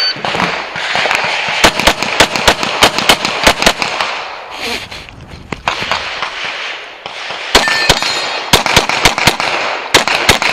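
Rapid pistol fire in two quick strings of a dozen or so shots, four or five a second, with a pause of a few seconds between them. A short electronic beep from a shot timer comes just before the second string.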